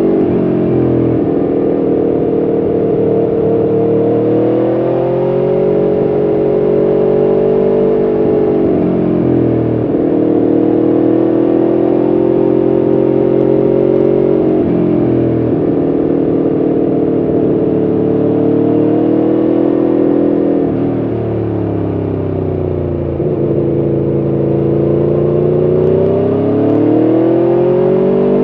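Aprilia Tuono V4 1100RR's 1077 cc V4 engine running under way, its note climbing and falling with the throttle through a run of bends. The pitch drops sharply a few times, and the engine goes quieter for a couple of seconds about two-thirds of the way through before pulling up again.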